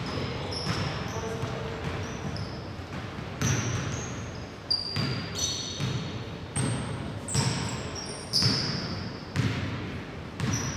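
A basketball bouncing on a hardwood court in irregular thuds, with short high squeaks of sneakers on the floor and a low murmur of the hall behind.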